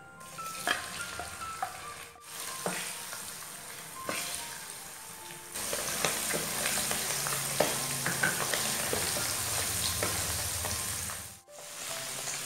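Flour-dusted chicken livers and gizzards deep-frying in hot oil in a wok: a steady sizzle with scattered pops, louder from about halfway in.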